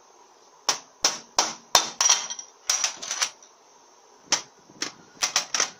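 About fifteen sharp metal knocks and clicks in irregular clusters as the regulator valve and its parts are tapped and worked out of the bore of an aluminium automatic-transmission valve body (Mazda FN4AEL / Ford 4F27E).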